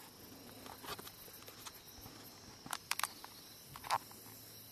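Insects chirring steadily in the background, with a few brief knocks and rustles close to the microphone as the camera is handled, the loudest a little before the end.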